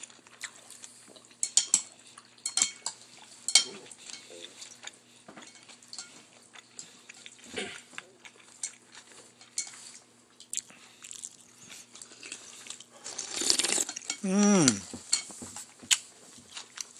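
Porcelain soup spoon and chopsticks clinking and tapping against a bowl of noodle soup, in scattered sharp clicks. There is a short vocal sound near the end.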